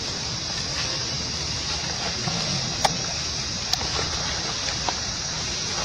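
Steady outdoor ambience: a constant high-pitched hiss over a low rumble, with a few sharp clicks in the middle.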